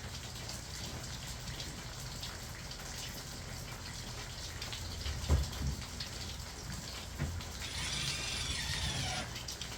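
Steady rain falling, with a patter of small drops. A dull thump about five seconds in, and a brief high, wavering whir near the end.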